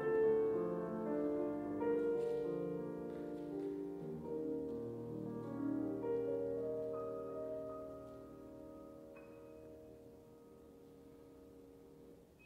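Slow instrumental background music with held chords that fade away over the last few seconds.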